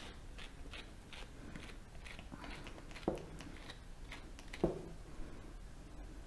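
Flexible slicker brush raking through a maltipoo's long, curly coat in short repeated strokes, about two or three a second. Two louder knocks land about three seconds in and again a second and a half later.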